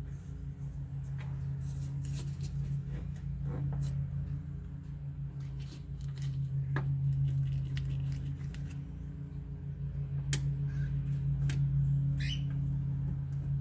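Scattered light metallic clicks and knocks as a car window regulator is fitted into the door and its bolt holes lined up, with a brief rising squeak near the end, all over a steady low hum.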